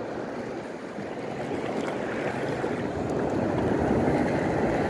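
Surf washing over a shallow reef at the shore: a steady rush of water that swells gradually louder.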